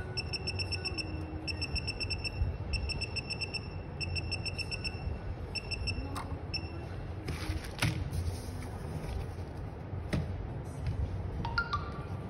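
An LCD screen tester beeping in rapid trains of short, high-pitched electronic beeps while its buttons are pressed; the beeping stops about six and a half seconds in. Then comes a short crinkle of bubble-wrap plastic being handled, along with a few light knocks.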